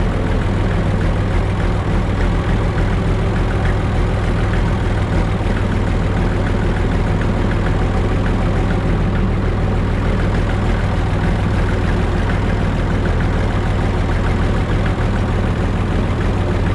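Massey Ferguson 95X tractor's six-cylinder diesel engine running steadily at idle.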